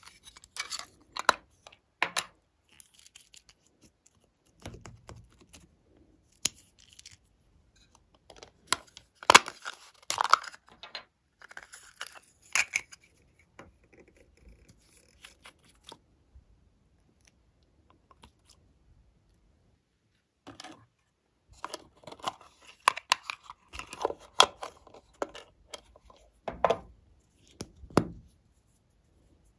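Small plastic cosmetic containers being handled and opened: irregular clicks, snaps, taps and scrapes in clusters, with a quieter stretch in the middle.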